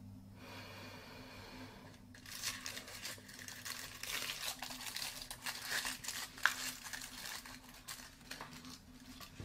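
Tissue paper crinkling and rustling as fingers unwrap a miniature sneaker inside a small cardboard box, an irregular crackle that starts about two seconds in. A faint steady hum sits underneath.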